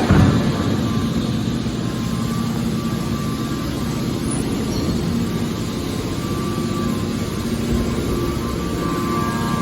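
A hydraulic metal baler running: a steady, loud machine drone with a few faint steady hums, and a heavy clunk right at the start.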